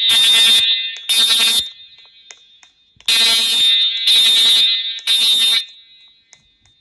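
Voice-evacuation fire alarm system sounding its alert tone in the temporal-three pattern: loud half-second tones, three about a second apart, a pause, then three more. This is the standard evacuation signal that precedes the recorded evacuation message.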